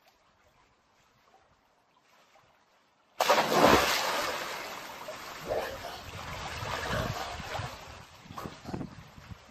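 A person jumps into a swimming pool: a sudden loud splash about three seconds in, after near silence, then water sloshing and smaller splashes as they swim.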